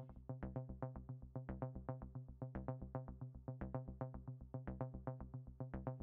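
Quiet synthesizer background music: a quick, even pulse of notes, about five a second, over a steady low tone.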